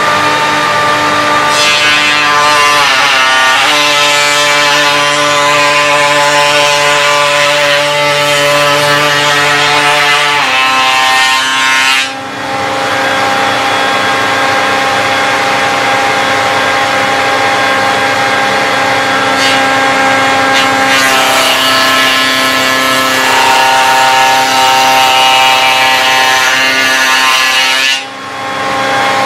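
Table-mounted router spinning a large-diameter ogee raised-panel bit with back cutter, cutting the edge profile into a wooden door panel: a loud, steady whine whose pitch shifts a few times, with two brief drops in loudness, about twelve seconds in and near the end.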